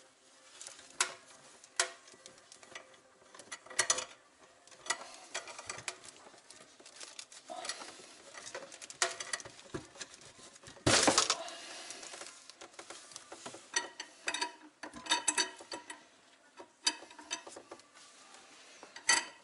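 Metal spanners clinking and scraping on the nut of a compression fitting on a copper water pipe as it is worked loose, with scattered sharp clicks and one louder rasping burst about eleven seconds in.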